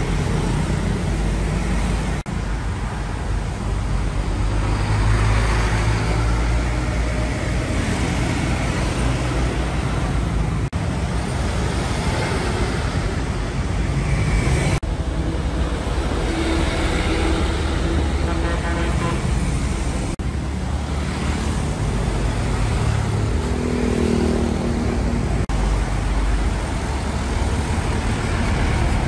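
Road traffic: box trucks driving past with their diesel engines running, among motorbikes and cars, with tyre noise. The sound changes abruptly several times.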